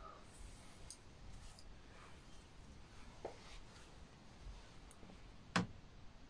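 Quiet room tone with a few faint clicks and rustles, and one sharper click about five and a half seconds in.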